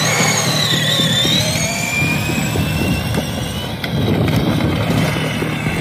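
Battery-powered toy vehicle's electric motor and gears whining at speed, high-pitched and sliding down then up in pitch, over a steady low hum.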